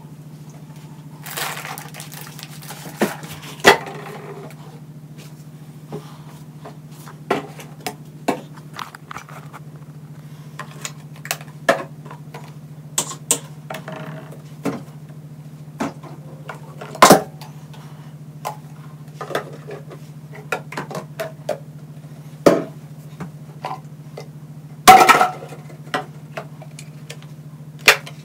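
Plastic toiletry bottles and other bathroom items being picked up, moved and set down on a windowsill and counter during cleaning: scattered knocks and clacks, a couple of them louder, over a steady low hum.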